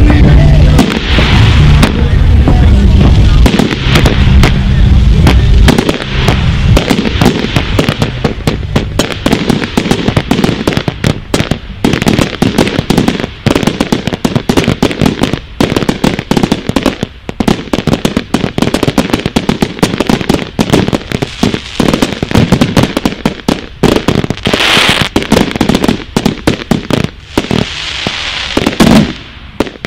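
Fireworks going off in rapid succession: a dense string of sharp shots and bursting reports, with heavy, deep booms for the first six seconds or so, then fast crackling volleys for the rest.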